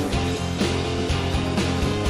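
Rock background music with guitar and a steady beat.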